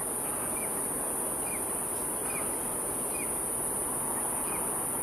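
Steady high-pitched insect chorus, with a short chirp repeating about once a second over a low, even rushing background.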